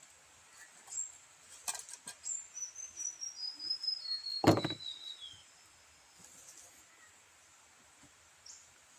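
A bird sings a run of high whistled notes that step steadily down in pitch over about three seconds. A few sharp clicks sound before it, and a loud knock comes about four and a half seconds in.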